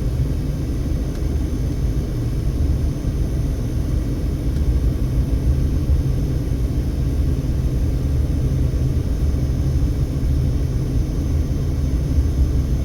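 Car driving along: a steady, low road and engine rumble.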